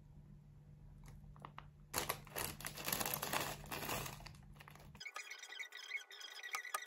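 A small plastic bag crinkling for about three seconds as toppings are shaken out of it into a plastic salad bowl. Near the end, a knife and fork click and scrape against the bowl.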